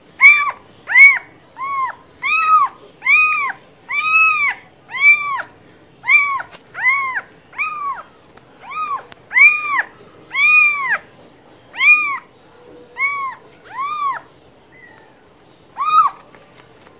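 Domestic cat meowing over and over: about twenty short meows, each rising then falling in pitch, most coming well under a second apart, with a pause of over a second near the end before one last meow.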